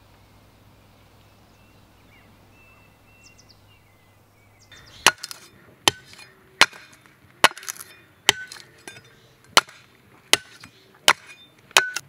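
A hatchet chopping down the edge of an upright log to split off kindling: about nine sharp strikes of steel into wood, roughly one every three-quarters of a second, starting about five seconds in.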